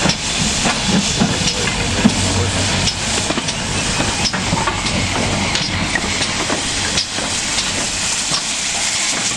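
GWR Small Prairie 2-6-2 tank locomotive No. 5526 moving slowly past at close range: a steady hiss of steam with irregular clanks and knocks from its wheels and motion.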